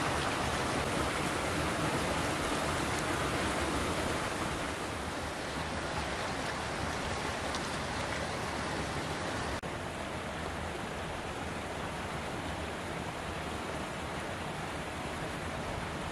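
Steady rush of flowing water, like water running through trout-farm ponds. About ten seconds in, a sudden cut leaves a slightly quieter steady rush.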